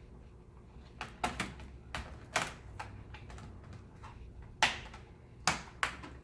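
Laptop plastic parts clicking and snapping as they are pressed back into place: a series of about nine sharp, irregular clicks, the loudest ones in the second half.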